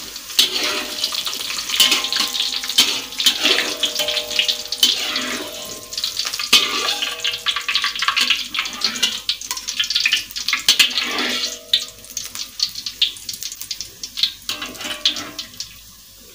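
Oil sizzling and crackling in a wok as fried tempeh cubes are scooped out and drained in a wire mesh strainer, with metal utensils scraping and clinking against the wok. The sizzle dies down in the last few seconds.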